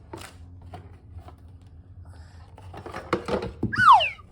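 LEGO box contents and plastic bags being handled, with scattered light clicks and a burst of rustling about three seconds in. Near the end comes one short high-pitched squeal that slides down in pitch.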